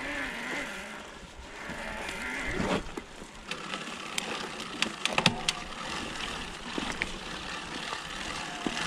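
Electric mountain bike mid-drive motors under hard load at low pedalling cadence, in high assist mode. First comes a wavering hum from a Specialized 2.1 RX motor. About a second in it gives way to a Rocky Mountain Dyname 3.0 motor, heard under tyre and trail noise, with a cluster of sharp rattles and knocks midway.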